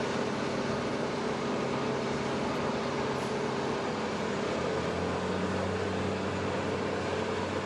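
Steady mechanical drone of aircraft machinery running on the flight line beside a parked C-130 Hercules, with a steady hum; a lower hum joins about five seconds in.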